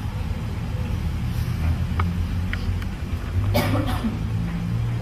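A steady low rumbling drone, with a few faint clicks and a brief hissing burst about three and a half seconds in.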